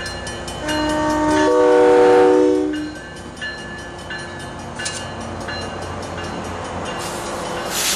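Metro-North BL20GH diesel locomotive sounding its multi-note horn for the grade crossing in one blast of about two seconds, then rumbling past with its coaches following. A short hiss rises near the end.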